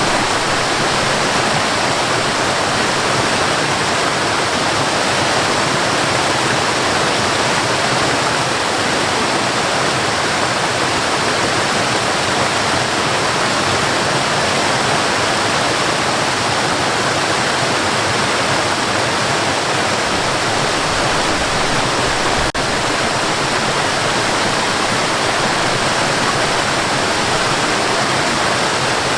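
Cascading water: a steady, loud, unbroken rush.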